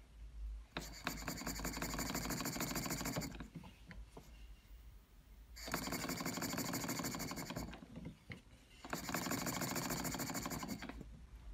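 Stuart Turner 10H model horizontal mill engine running on compressed air in three bursts of two to three seconds each, with pauses between. Each burst is a fast, even run of exhaust beats and mechanical clatter.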